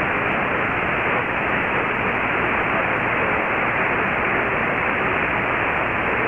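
Heavy, steady shortwave static from an Icom IC-R8600 receiver in AM mode tuned to a weak signal on 15140 kHz. A man's voice from the broadcast lies faintly under the hiss, too weak to make out.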